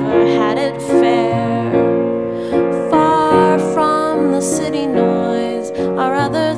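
Gentle indie song on piano with a woman's voice singing long wavering notes over it.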